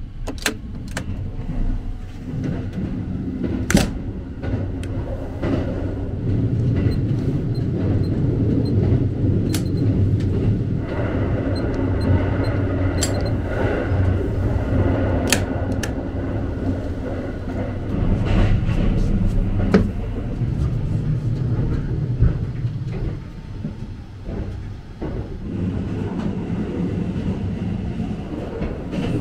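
Sunrise Izumo sleeper train running, heard from inside the carriage as a steady low rumble, with scattered sharp clicks and knocks from a compartment door and its latch.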